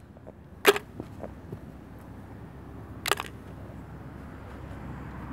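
Two sharp clicks about two and a half seconds apart: small rusty metal magnet-fishing finds being handled and dropped into a plastic bucket among other rusty finds.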